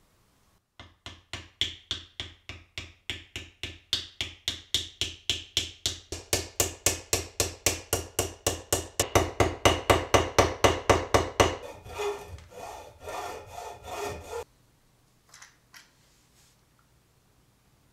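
A hand tool scraped rapidly back and forth on the wooden end of an axe handle, about four strokes a second, growing louder, then turning uneven before stopping abruptly. Two faint taps follow.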